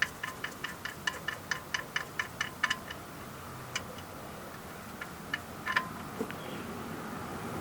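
Ratchet wrench with a 17 mm socket clicking rapidly, about four to five clicks a second, as the oil drain plug is backed out. A few single clicks follow later.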